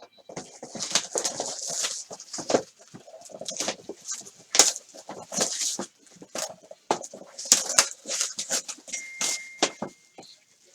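Sealed card-box packaging being handled: irregular crinkling and rustling of plastic wrap and cardboard, with sharp clicks and crackles throughout. A short, thin, steady high tone sounds near the end.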